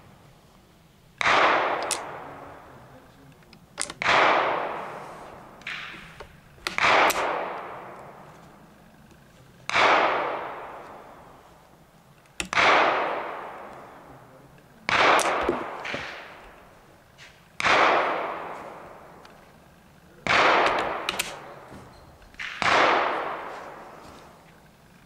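Gunshots, nine in a row about every two and a half to three seconds, each with a long echoing tail, and a few fainter sharp sounds between some of them.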